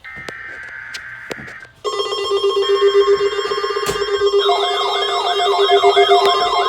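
Electronic alert tones. A brief hiss of noise with a few clicks gives way, about two seconds in, to a loud steady electronic tone. A second tone joins it a couple of seconds later, warbling up and down about two and a half times a second like a siren.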